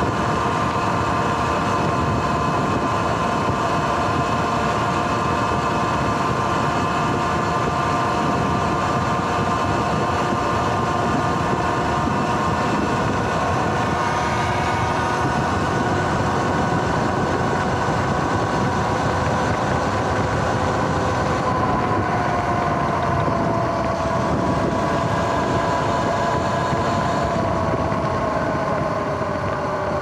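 Electric dirt bike riding at a steady cruising speed: the motor and drive's steady whine over dense wind and tyre-on-asphalt noise. Near the end the whine falls in pitch as the bike slows.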